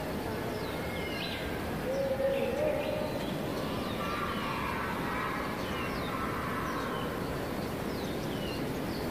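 Birds calling outdoors over a steady background hiss: short, repeated downward-sliding chirps throughout, a lower call about two seconds in, and a longer held call near the middle.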